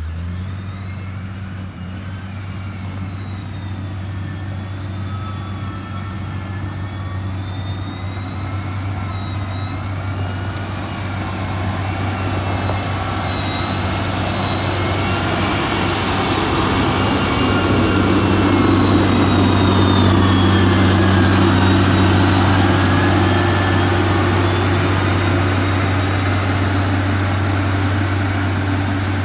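Heavy diesel engine of a road-construction machine running steadily, with a high whine that wavers in pitch. It grows louder until about two-thirds of the way through, then eases off a little.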